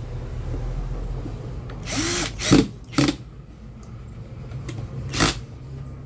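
Cordless drill-driver run in a few short bursts, its motor whirring briefly each time the trigger is pulled, while screws are driven into a table fan's housing.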